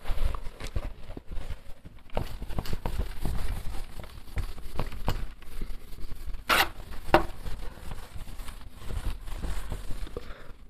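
Whiteboard duster wiping marker off a whiteboard in a rapid run of rubbing strokes, with two short squeaks a little past halfway.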